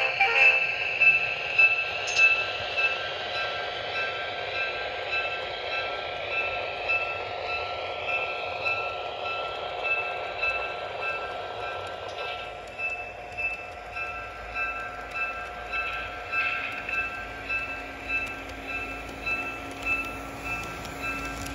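HO scale model train running, its sound-equipped locomotive giving off steady tones with a ringing pulse repeating about twice a second as it comes round the curve and passes close by.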